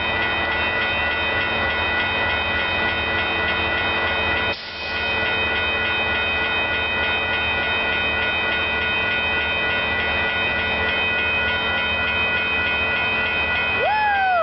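Caltrain commuter train passing through the station, led by an MP36PH-3C diesel locomotive, with several steady high tones sounding throughout. A short whoop of a voice comes right at the end.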